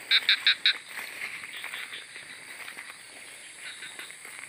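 A frog calling: four quick, evenly spaced croaks in the first second, then only faint rustling.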